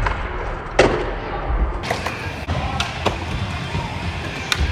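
Skateboard grinding a metal flat bar and landing on a concrete floor with a loud clack about a second in, then urethane wheels rolling steadily with several more board clacks.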